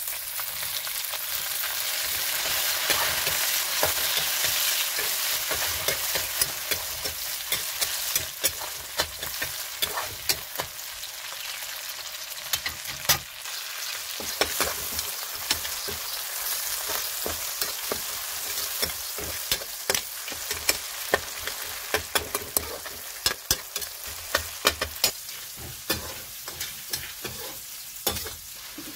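Chopped tomatoes and onion frying in plenty of oil in a steel kadhai: a steady sizzle, loudest in the first few seconds. A steel ladle scrapes and clicks against the pan as the masala is stirred, and the clicks come more often in the second half.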